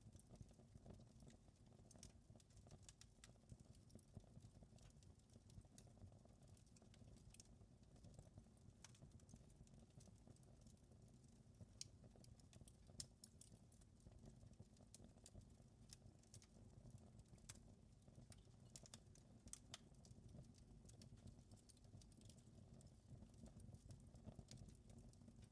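Wood fire crackling faintly, with irregular small pops and snaps over a low steady rumble.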